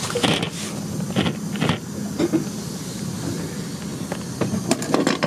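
Marina pump-out station's suction pump running with a steady low hum, with short hissing bursts of air and liquid drawn through the pump-out hose now and then.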